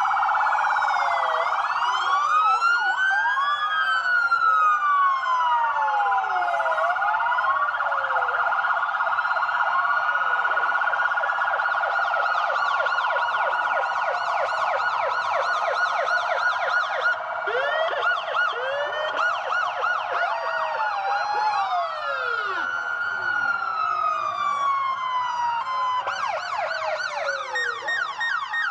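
Police sirens sounding together: slow rising-and-falling wails overlap with fast repeating yelps over a steady high tone, without a break.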